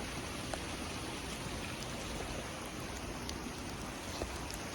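Creek running high after heavy rain: a steady rush of flowing water, with a few faint ticks of splashes.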